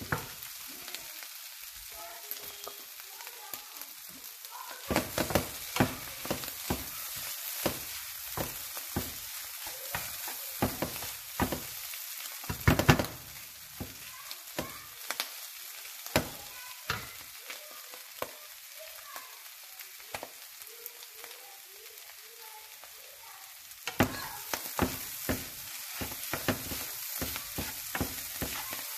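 Clam meat sizzling in oil in a non-stick frying pan while a wooden spatula stirs and scrapes it. The spatula knocks against the pan in quick runs of strokes, thinning out past the middle and picking up again near the end.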